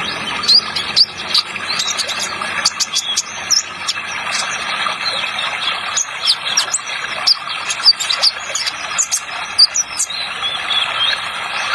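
Kolibri ninja (a sunbird) singing a rapid string of short, high chirps and ticks, over a steady running-water sound.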